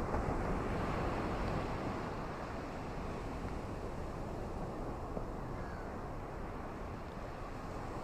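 Steady wash of ocean surf with falling rain, swelling slightly in the first second or two.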